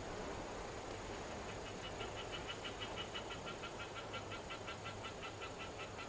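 Japanese level-crossing electronic warning alarm starting up, a rapid train of short bell-like tones beginning about a second and a half in, over a faint steady background hiss.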